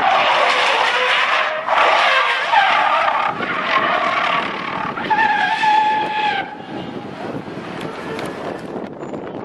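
Car tyres squealing and skidding while drifting, in several long bursts, the last with a steady high squeal. It dies down about two-thirds of the way through.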